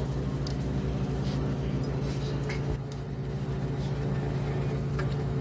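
A steady low machine hum runs throughout, with a few light clicks of small parts being handled during carburettor reassembly.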